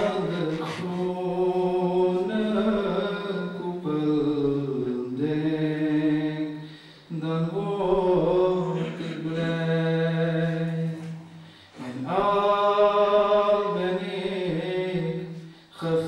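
A man reciting a naat in Dutch, a solo unaccompanied chant of long drawn-out notes sung in phrases, with short breaks for breath about seven, twelve and sixteen seconds in.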